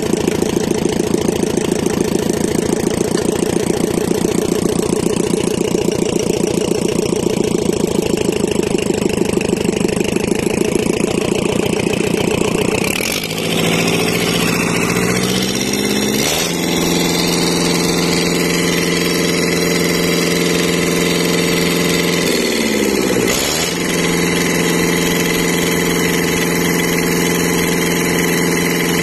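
Kubota four-cylinder diesel, freshly rebuilt with new piston rings, running on a stand. Its speed changes about 13 s in as the governor lever is worked, settles to a steadier note a few seconds later, and dips briefly and picks up again about three-quarters of the way through.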